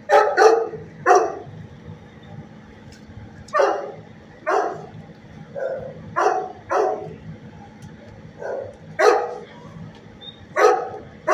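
Shelter dogs barking: about a dozen short, sharp barks in scattered groups of one to three.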